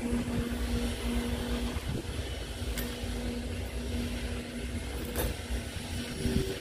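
A steady low machine hum with a faint steady tone in it, and two light clinks of a steel bowl against a steel plate, a little under three seconds and about five seconds in.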